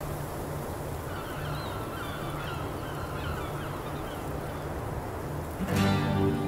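Steady rushing ambience with repeated short bird calls over it; about five and a half seconds in, a strummed acoustic guitar comes in and the music begins.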